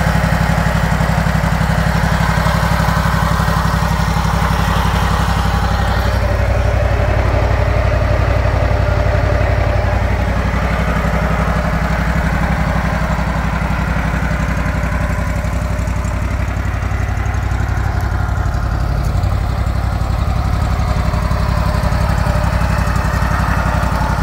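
Ditch Witch 1820 trencher's engine idling steadily, its pitch easing down slightly about ten seconds in.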